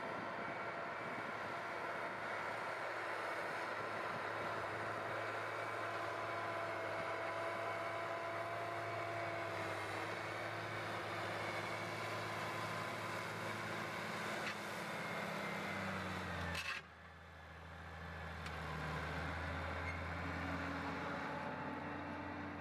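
Ford 8830 tractor's six-cylinder turbo diesel engine running steadily under load, pulling a disk through sod. About three-quarters of the way through the sound changes abruptly, and the engine comes back quieter, with less of the high rushing noise.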